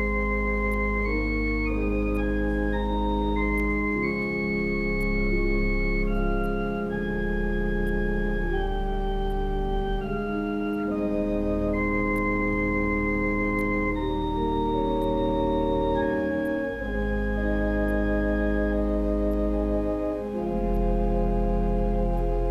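Organ music: slow, sustained chords changing every second or so, with a deep pedal bass that drops out and comes back a few times.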